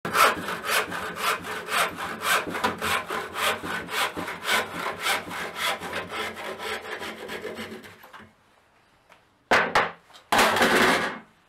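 Hand saw cutting through an MDF board clamped upright in a vise, with steady back-and-forth strokes about three or four a second that fade out about eight seconds in as the cut finishes. Near the end come two short loud noises about a second apart, the second longer.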